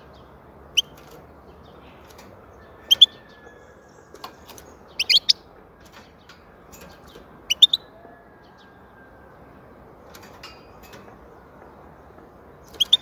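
European goldfinch giving short, sharp high call notes, singly or in quick clusters of two or three, five times with pauses of a few seconds between them, over a steady low background hiss.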